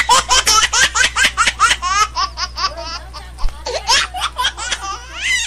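Laughter: a long run of quick, high-pitched laughs, about four a second, over a steady low hum.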